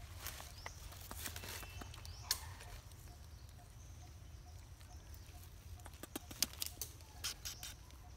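Scattered rustles and sharp clicks of monkeys scrambling over dry leaves and rock, with a quick cluster of clicks about six seconds in, over a low steady rumble.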